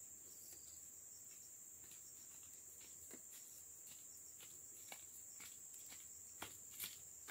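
Faint, steady high-pitched insect chorus, with a few soft footsteps crunching on dry palm fronds and grass near the end.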